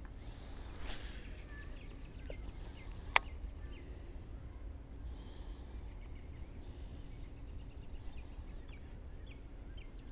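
Quiet pondside outdoor ambience: a steady low rumble with scattered faint bird chirps, and one sharp click about three seconds in.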